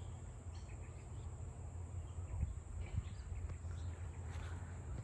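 Outdoor garden ambience: a steady low rumble with a few faint, scattered chirps.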